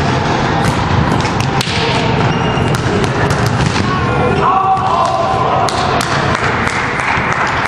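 Volleyball rally in a sports hall: the ball struck by players' hands and arms in a string of sharp thumps, with echoing voices and footsteps on the court floor.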